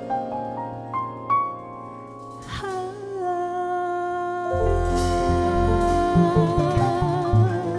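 Live jazz band playing the closing bars of a ballad: sustained piano and keyboard notes with a few struck accents, then a long held note with vibrato. About halfway through, bass and drums come in strongly under it.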